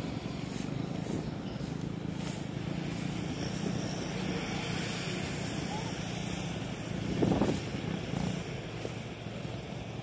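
Motocross dirt bike engine running steadily as the bike rides away, with one brief louder burst about seven seconds in.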